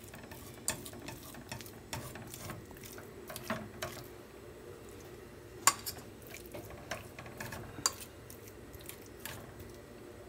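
A fork mashing boiled potato chunks in a metal pot, with irregular clinks and scrapes of the fork against the pot.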